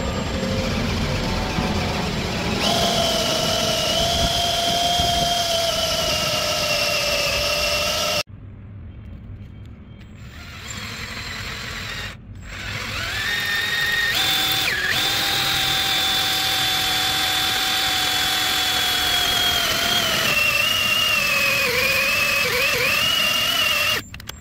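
Cordless drill spinning a 22 mm metal hole saw through the lead terminal connector of a forklift battery cell, a steady whine. It drops off abruptly about 8 s in, comes back about 13 s in, and its pitch wavers and dips near the end as the saw bites, before stopping.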